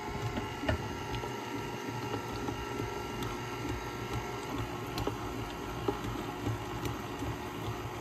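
KitchenAid tilt-head stand mixer running steadily with its flat beater, creaming softened butter and vegetable shortening in a glass bowl: a constant motor hum, with an occasional light click.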